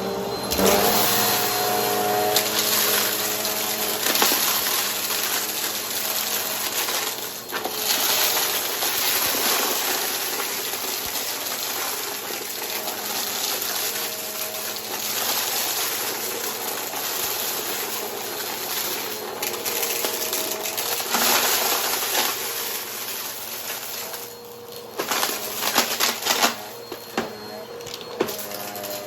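Upright vacuum cleaner running with its brushroll spinning, a steady motor hum under a rushing suction noise that swells and fades as it is pushed back and forth. Near the end come several sharp crackles and clicks, like debris rattling up through the brushroll.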